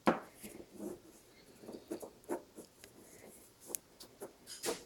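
Crayons scratching and tapping on paper in short, irregular strokes, with a louder knock at the very start.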